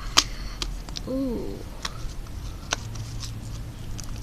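Sticky glitter-glue slime being squished and stretched by hand, giving scattered small pops and clicks, with a drawn-out 'ooh' about a second in.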